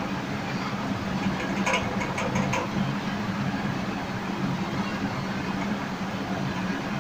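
A steady low mechanical hum, with a few faint ticks around two seconds in.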